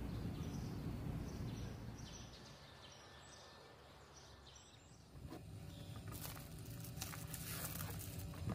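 A low rumble fades away to a quiet stretch. About five seconds in, a steady low hum starts, and rustling and scraping follow as a plastic padded mailer is handled.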